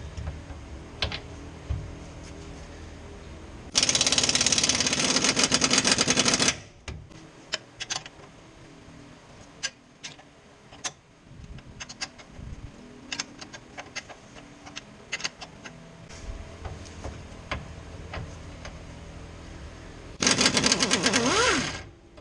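Impact wrench hammering on a suspension bolt of the front lower control arm in two loud bursts, one about four seconds in lasting nearly three seconds and one near the end lasting about two, with scattered clicks and clinks of hand tools between.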